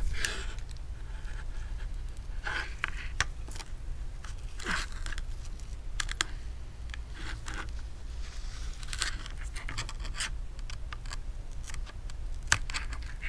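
A pry tool scraping and clicking along the edge of an iPhone 6s Plus, slicing through the display adhesive to pry the cracked screen free. The sound is irregular short scratches and sharp clicks over a low steady hum.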